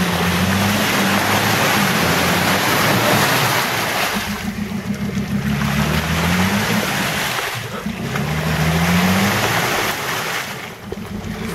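Jeep Liberty Renegade's engine revving up and easing off several times while its wheels spin and churn through deep mud and water, the vehicle bogged down and struggling for traction.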